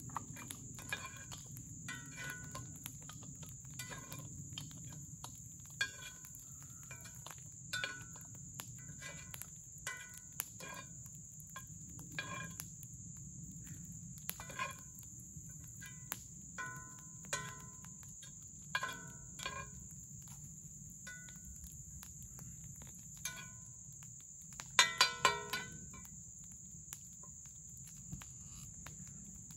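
Metal spatula clinking and scraping against a skillet while eggs are stirred, in short irregular taps about a second apart, with a quick run of four louder clinks near the end.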